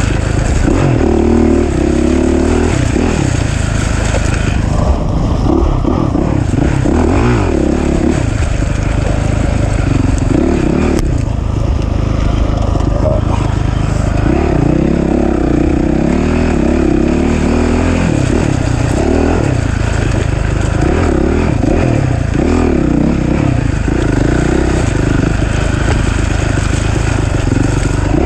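Off-road racing machine's engine ridden hard, revving up and falling off again and again as the throttle is worked through the course.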